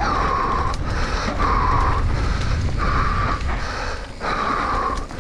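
Mountain biker breathing hard under race effort: heavy, rhythmic breaths about every second and a half, four in all. Underneath is a steady low rumble from the bike rolling over the dirt trail.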